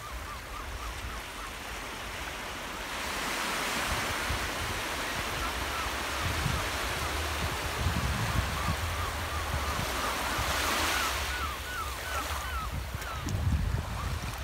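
Small sea waves lapping and washing over a sandy shore, with wind rumbling on the microphone. The wash swells louder about ten to eleven seconds in.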